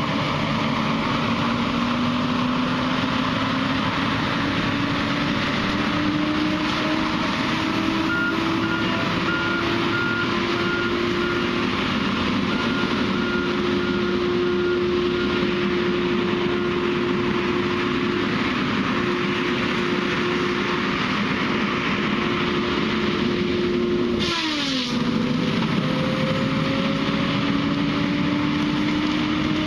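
A heavy machine's engine running and slowly rising in pitch for over twenty seconds, then dropping sharply near the end and climbing again. A row of short, evenly spaced high beeps sounds for several seconds in the middle.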